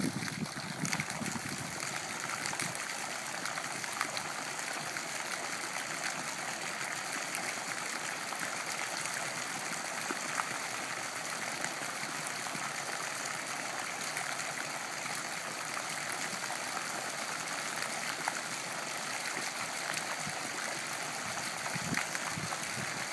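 Fountain water jets coming on and arcing into a shallow pool, splashing down in a steady, even hiss of falling water.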